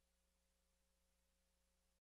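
Near silence: digital silence after the outro music has faded out.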